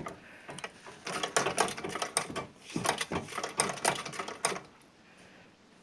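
Singer 29-4 treadle sewing machine stitching: its needle and mechanism clatter rapidly in two runs with a short break between, stopping about four and a half seconds in.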